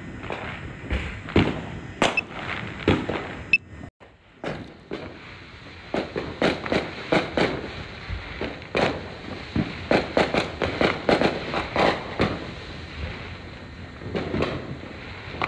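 Many fireworks going off at once: a dense, uneven run of sharp bangs and pops, briefly dropping out about four seconds in.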